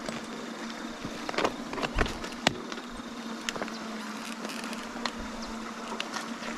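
Scattered clicks and knocks of footsteps and bike parts rattling as a mountain bike is pushed on foot over a rocky track, with a sharper knock about two and a half seconds in. A steady low hum runs underneath.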